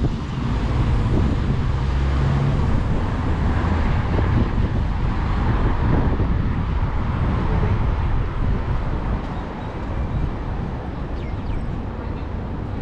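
Steady city street traffic noise, with wind buffeting the microphone, easing a little after about nine seconds.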